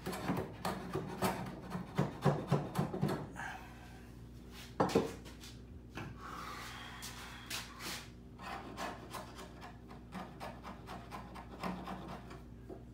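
Quick back-and-forth strokes of a hand tool rasping on wood, trimming the end of a board, for the first three seconds or so. Then one sharp knock about five seconds in, followed by a few scattered light scrapes and taps.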